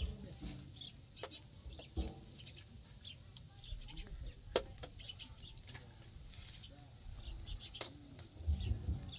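Birds calling and clucking at scattered intervals, with a few sharp knocks; the loudest knock comes about halfway through.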